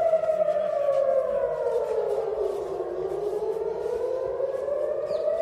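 Civil-defence air-raid siren wailing, its pitch sliding slowly down and then back up again in one long cycle: the alert for incoming rockets.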